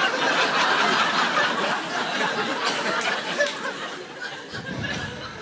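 Audience laughing, loudest in the first few seconds and then fading away.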